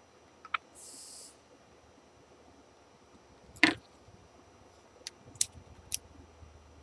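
Small clicks and taps from handling test probes and a multimeter on a workbench: one louder sharp knock about halfway through, then a few lighter ticks. There is a brief faint hiss about a second in.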